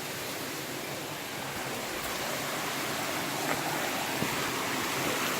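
Stream water rushing over rocks, a steady hiss that grows gradually louder.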